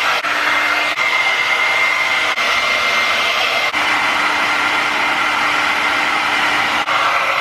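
Handheld hair dryer running steadily, a rush of air with a steady high whine over it, broken by a few very brief dips.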